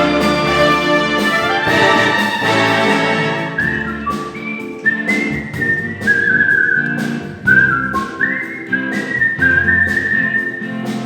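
Artistic whistling: a man whistles a melody over instrumental backing music, coming in about three and a half seconds in with held notes and slides between them.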